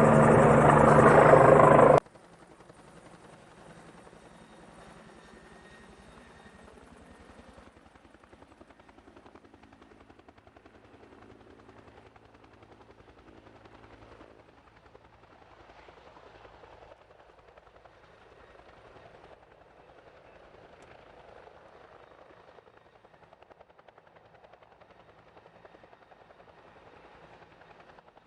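Helicopter rotor and engine running, loud for the first couple of seconds, then cutting suddenly to a much fainter, steady rotor beat for the rest.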